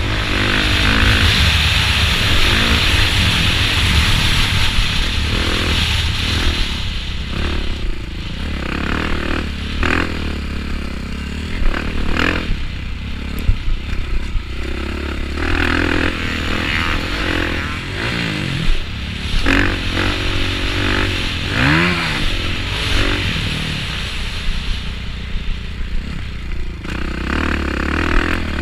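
Motocross bike engine racing around a dirt track, its pitch rising and falling again and again as the rider opens and closes the throttle through the corners and straights, heard from the rider's helmet camera. Scattered sharp knocks and clatter from the bike over the rough ground come through, and a heavier hiss runs through the first few seconds.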